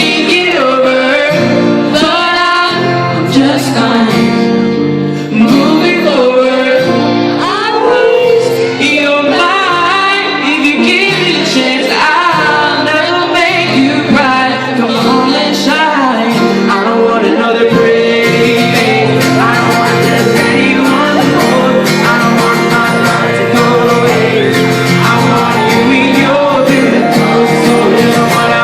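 A pop song sung live over guitar accompaniment, with a singing voice carrying the melody throughout.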